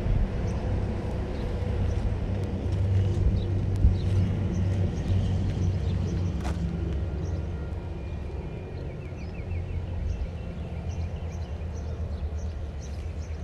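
Steady low outdoor rumble, with one sharp click about six and a half seconds in and faint high chirps over the last few seconds.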